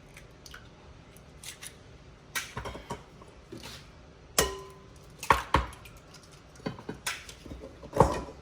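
Eggs being cracked against the rim of a bowl: several sharp taps and knocks, one about four and a half seconds in leaving a short ringing tone.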